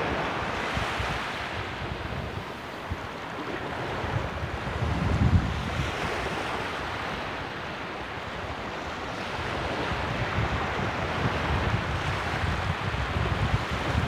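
Small surf breaking and foaming up a sandy shore, with wind buffeting the microphone. A wave surges loudest about five seconds in, and the wash builds again near the end.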